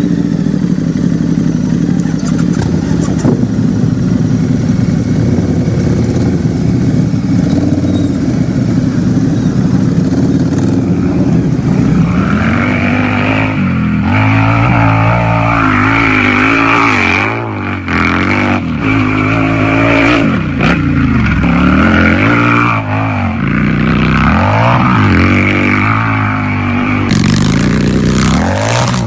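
Harley-Davidson motorcycle's V-twin engine idling steadily. From about twelve seconds in it is revved over and over, the pitch rising and falling with each twist of the throttle.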